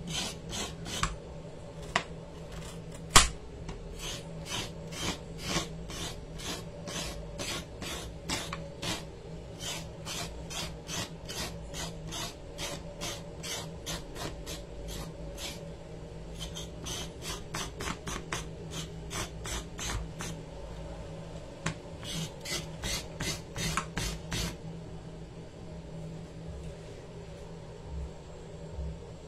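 Kitchen knife blade scraping the skin off a raw carrot, a long run of short, even scraping strokes about three a second that stops a few seconds before the end. One sharp knock about three seconds in.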